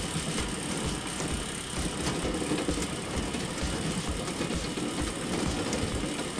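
Small electric motor of a homemade cardboard screw-press oil mill running steadily while pressing mustard seeds, a mechanical whirr with fast, uneven low thudding.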